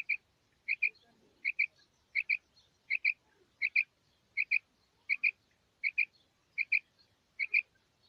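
Female rain quail calling: a quick double note, repeated steadily about every three-quarters of a second.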